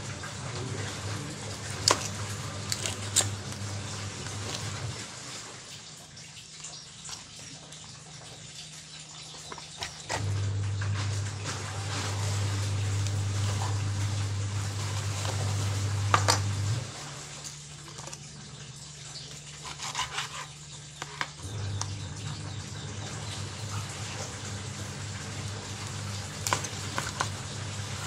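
Kitchen knife slicing raw chicken breast on a plastic cutting board, with scattered sharp knocks as the blade meets the board. Behind it a low steady hum comes and goes, switching on and off three times.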